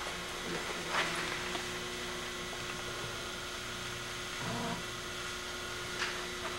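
Steady electrical hum over a faint hiss, with two faint clicks, one about a second in and one near the end.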